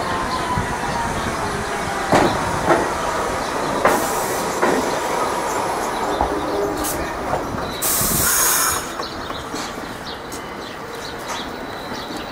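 R68 subway train rolling into a station and braking to a stop: wheels squealing, with sharp clacks over rail joints in the first few seconds. A hiss of air lasting about a second comes about eight seconds in, after which the train sounds quieter.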